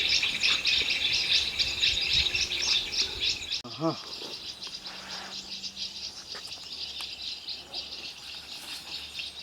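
Dense outdoor chorus of insects and calling birds, a thick continuous chatter of quick high notes; it is loud at first and drops abruptly to a softer level a little under four seconds in.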